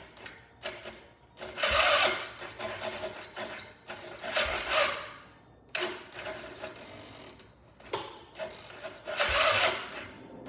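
ATV engine being cranked on its electric starter in three short tries, each under a second, without catching: the engine won't start.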